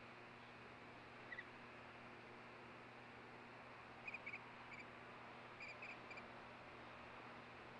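Faint short high chirps from ospreys at the nest, once early on and then in quick pairs and threes for a couple of seconds past the midpoint, over a steady hiss.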